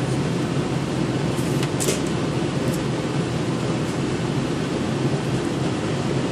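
Steady low machine hum, with a few light clicks about two seconds in as a phone screen assembly is handled.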